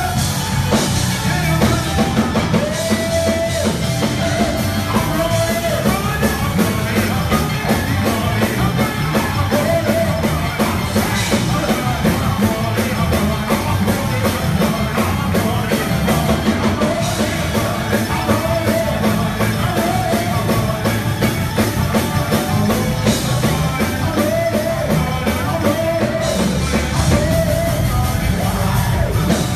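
Live church band playing loud, driving praise music with drums, a singer shouting and singing into a microphone over it.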